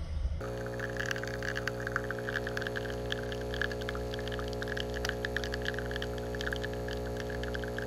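Capsule coffee machine humming steadily as it brews decaf coffee, the thin stream spattering and crackling into a pitcher of frothed milk.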